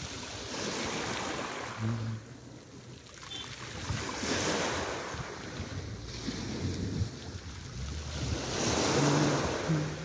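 Small sea waves washing onto the beach, the surf noise swelling and fading in turn, with two loud swells about halfway through and near the end.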